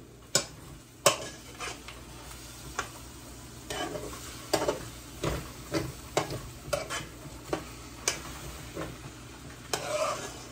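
A metal spoon scraping and knocking against a metal cooking pot as rice is turned over, in irregular strokes about once a second. Under the strokes runs a steady faint sizzle of the rice cooking as its water dries out.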